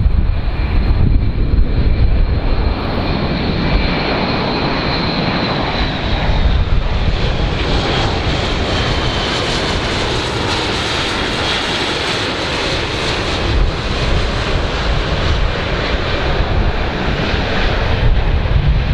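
Airbus A400M's four TP400 turboprop engines with eight-bladed propellers drone steadily as the aircraft passes low. A high whine slides a little lower in pitch during the first half, over a dense low rumble.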